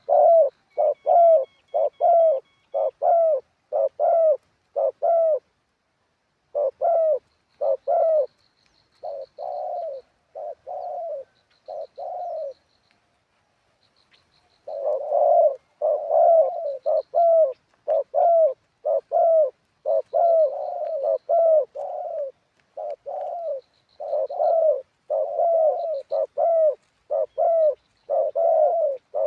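Spotted dove cooing in long runs of low coo notes, about two a second, breaking off for about two seconds midway before starting again. Faint high chirps from small birds come in and out.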